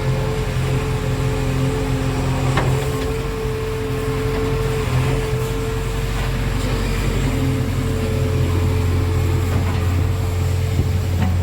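A JCB backhoe loader's diesel engine running steadily while it works, a low hum with a steady whine above it. A single knock sounds about two and a half seconds in.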